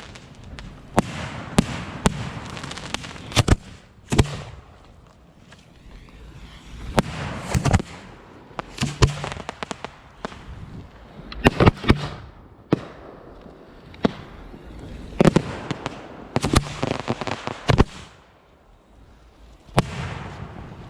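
Fireworks going off: a string of sharp bangs at irregular intervals, some in quick pairs, with a brief lull near the end.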